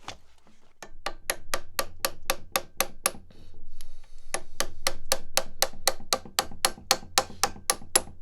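Rapid, evenly spaced hammer taps on metal, about four or five a second, working a stuck key out of an old Peter Wright leg vise without a punch. The taps come in two runs with a short pause between them.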